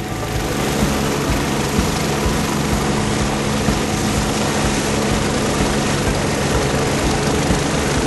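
Medical helicopter running on the ground with its turbine engines going and main rotor turning: a steady hum over a broad rushing noise.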